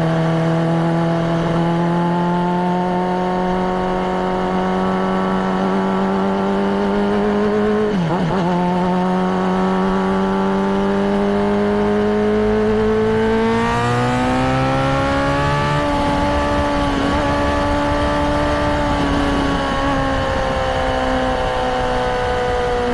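Honda CBR600RR's inline-four engine running, its pitch climbing slowly, wavering briefly about eight seconds in, then rising again around the middle and sinking slowly towards the end.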